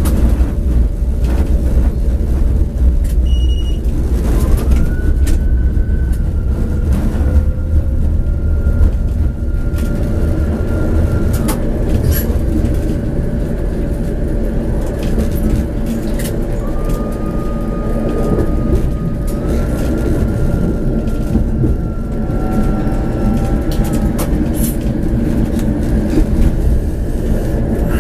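Tram running along the track, heard from on board: steady low rumble of wheels on rails, with a high motor whine that rises and holds twice, cutting off about halfway through and again near the end.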